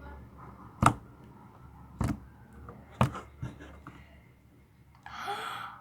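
Homemade clear slime being handled and pressed, giving several sharp clicking pops about a second apart, then a brief airy hiss near the end.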